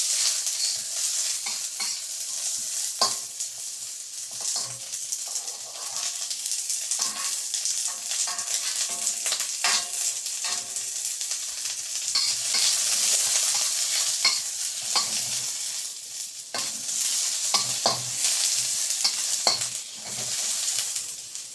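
Onion and garlic sizzling in hot olive oil in a wok while being stir-fried, with a steady frying hiss and repeated clicks and scrapes of the utensil against the wok.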